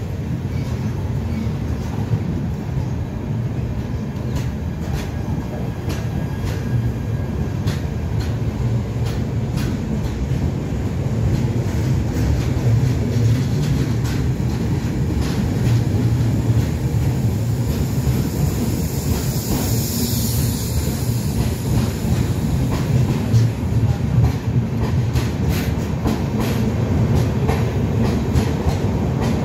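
Shatabdi Express passenger coaches rolling past along the platform: a steady low rumble of wheels on rail with clicks at the rail joints, growing slightly louder about halfway through. A brief high hiss comes about two-thirds of the way in.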